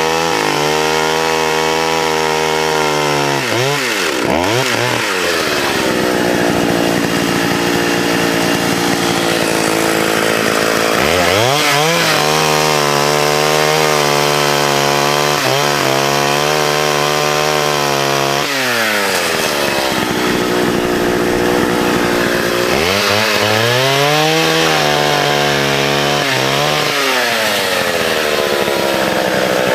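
A vintage 1979 Partner S-55 two-stroke chainsaw cutting wood. It runs at high revs for long stretches, drops in pitch about four seconds in, again around 18 seconds and near the end, and revs back up each time.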